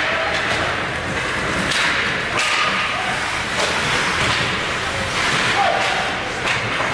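Ice hockey play on the rink: skate blades scraping the ice and sticks and puck clacking, with several sudden clacks and thuds, echoing in a large arena.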